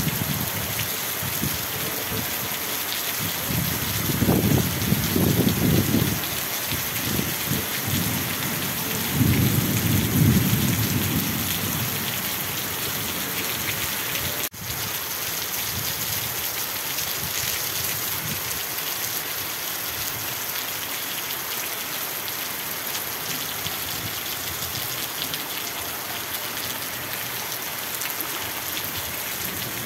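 Heavy rain pouring steadily, with two low rolls of thunder, one about four seconds in and another about nine seconds in.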